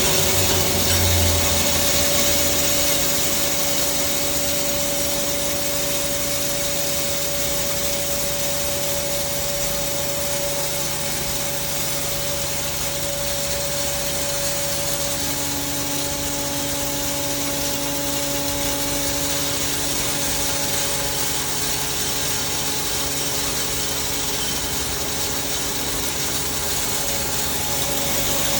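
Hammer-mill maize grinder running: a steady mechanical drone with a constant hum under a dense rushing noise.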